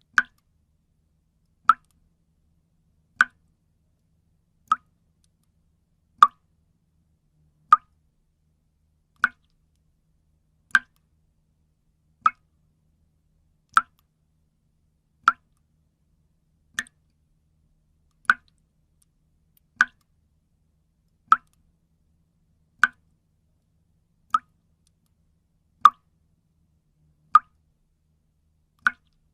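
Water dripping: single drops plop one at a time at an even pace, about one every second and a half, with silence between them.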